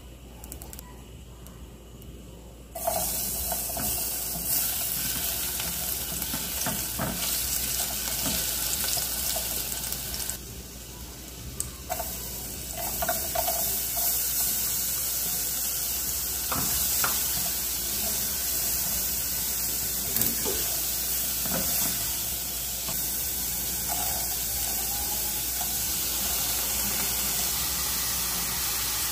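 Garlic, chopped carrot and then rice frying in rendered chicken fat in a saucepan: a loud sizzle that starts suddenly about three seconds in, dies down briefly mid-way and comes back. A silicone spatula knocks and scrapes against the pan now and then as the food is stirred.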